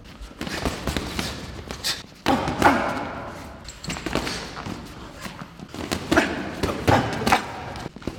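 Boxing gloves landing during light sparring: a string of irregular padded thuds and slaps, several a second in flurries, with short pauses between exchanges.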